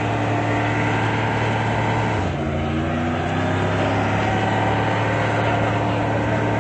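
White Dodge Ram pickup's engine held at high revs during a burnout. About two seconds in, the revs drop briefly, then climb back and hold steady.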